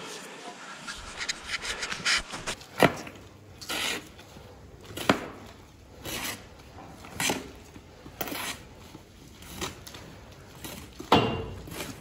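A shovel scraping wet sand and manure slurry across a barn floor in repeated strokes, about one a second, starting a few seconds in.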